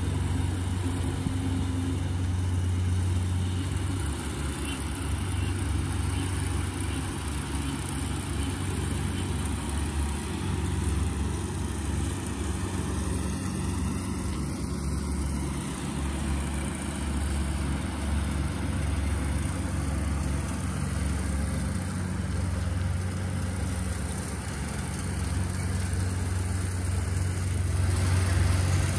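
Rice combine harvester's engine running steadily while it harvests the field, a low hum that grows a little louder near the end.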